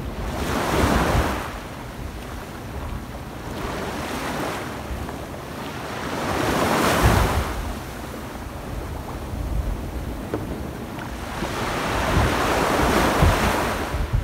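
Small waves breaking and washing up a sand beach: three swells of surf, one about a second in, one about halfway and a longer one near the end, with a softer wash between them.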